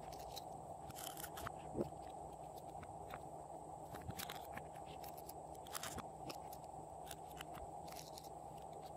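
Scattered soft clicks and sticky crackles of fingers handling a silicone mold and pressing into slime, over a steady low background hum.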